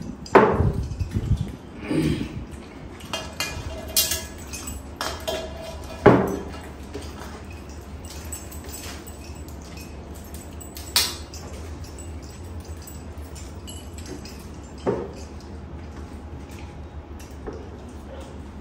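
Scattered clinks and knocks of steel platters and glass water mugs on a table, with hands scooping rice, during fast eating, over a steady low hum.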